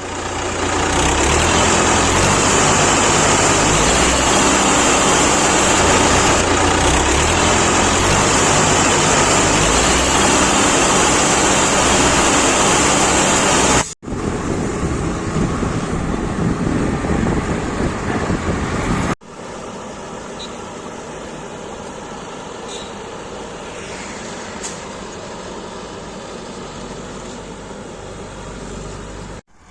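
Heavy machinery engines running steadily, with a deep rumble. The sound changes abruptly twice, at cuts between clips, and the last stretch is quieter.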